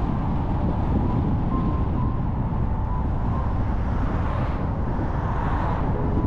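Steady low rumble of road and wind noise from a car driving, with a brief swell of noise about four and a half seconds in as a car passes.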